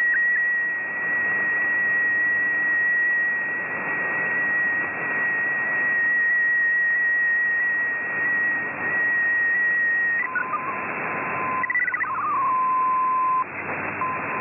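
Shortwave radio reception of an MFSK64 digital-mode broadcast over static hiss: a steady high tone of the picture transmission runs until about ten seconds in, then gives way to short stepping tones and a lower steady tone of the data signal.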